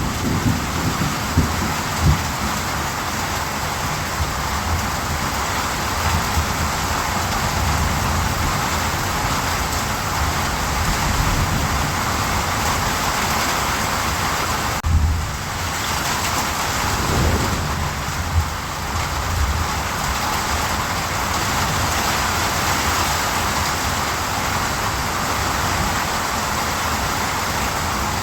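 Steady, even rain with low rumbles of thunder swelling up now and then, most clearly about halfway through.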